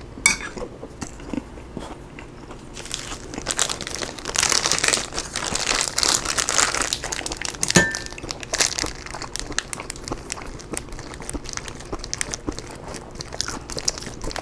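A person eating close to the microphone: crisp crunching and crinkly crackling of chewing, busiest in the middle, with one sharp click about 8 seconds in.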